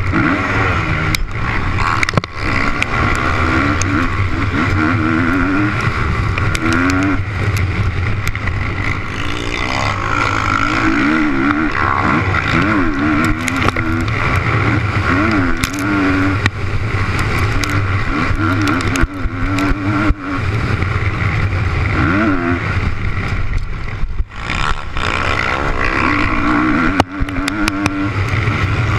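Motocross bike's engine running hard, its pitch rising and falling again and again as the throttle is worked over the track, close up from the bike itself, with scattered sharp knocks.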